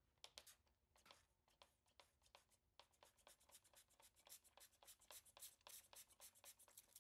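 Faint, quick series of short hissing spurts of liquid misted from a spray bottle onto a powder-coated steel crib panel. The spurts come about five a second and grow denser and louder in the second half.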